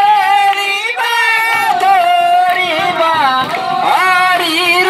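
A man singing through a handheld microphone and loudspeaker, drawing out long notes that bend and waver in pitch.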